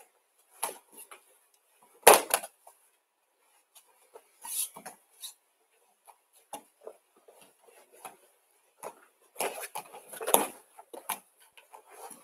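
Irregular thumps, scuffs and rustles of a judoka grappling with a homemade judo throwing dummy on the mats. There is a louder thump about two seconds in and a cluster of knocks around ten seconds.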